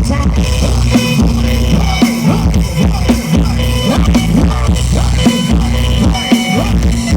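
Loud music with a heavy bass and a drum beat, played through a Thai rot hae parade truck's outdoor sound system.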